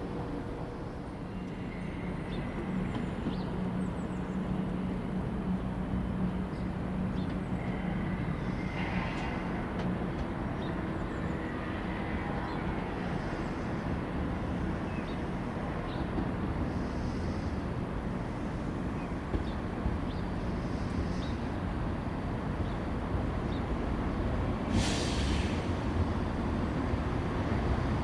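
Diesel multiple units (a Class 172 Turbostar, then a Class 168 Clubman) running slowly into a station: a steady low engine drone and rail rumble, with a short hiss of air near the end.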